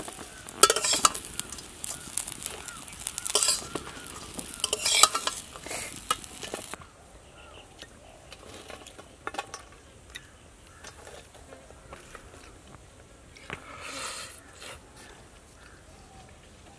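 Small fish frying in hot oil in a wok, sizzling, with a metal spatula clanking against the pan a few times. About seven seconds in, the sizzle cuts off, leaving only faint clinks of steel plates and bowls.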